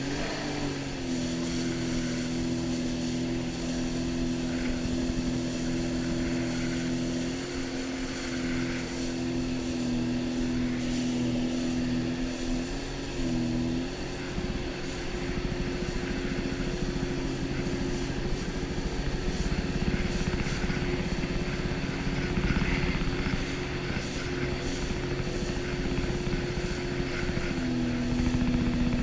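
Jet ski engine running at a steady, held speed, its pitch shifting slightly now and then with the throttle.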